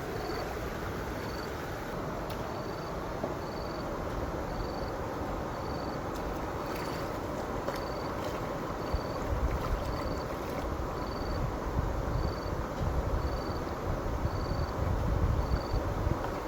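Steady outdoor wind noise, with gusts buffeting the microphone in the second half, and a faint high insect chirp repeating about once a second.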